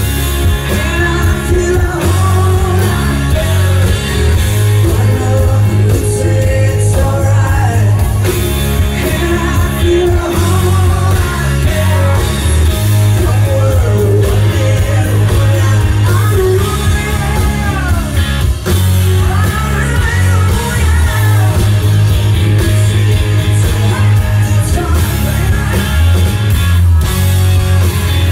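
Hard rock band playing live and loud: a female lead singer over electric guitars, bass and drums, with a heavy low end.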